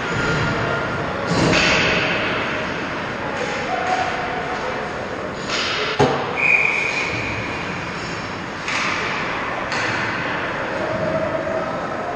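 Ice hockey play in a rink: skate blades scraping the ice in rushes of hiss, a sharp knock about six seconds in, then a short high tone, over the hall's steady background noise.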